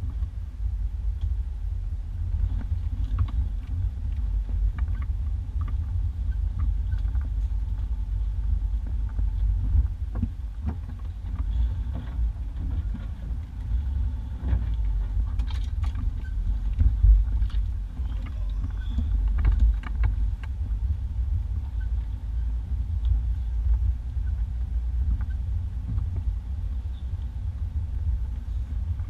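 1991 Isuzu Trooper driving slowly along a rough dirt two-track, heard from inside the cab: a steady low engine and drivetrain rumble with scattered knocks and clicks.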